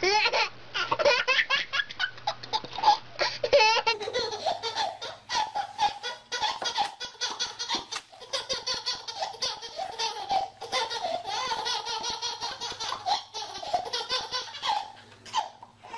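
A baby laughing hysterically in quick, repeated bursts of belly laughter. About four seconds in, it gives way to a second baby laughing the same way.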